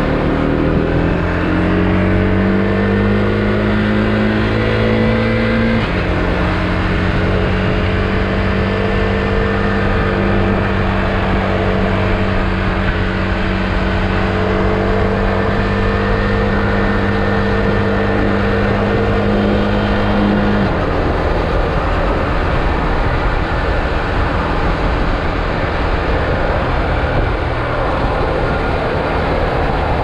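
Husqvarna Svartpilen 401's single-cylinder engine on its stock exhaust, heard from the saddle at expressway speed. It pulls with a rising note, drops in pitch in one step about six seconds in as the next gear goes in, and holds a steady note. About twenty seconds in the engine note falls away, leaving the rush of wind and road noise.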